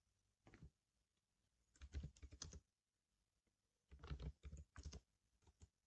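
Quiet computer keyboard typing: short runs of keystrokes, four of them with pauses in between, as a command is typed into a terminal.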